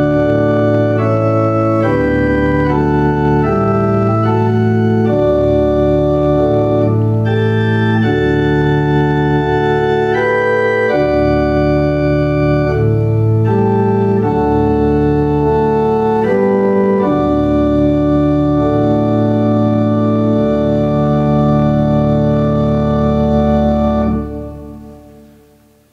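Church organ playing a slow piece in sustained chords that change about once a second over a held bass. The last chord is released near the end and dies away in the church's reverberation.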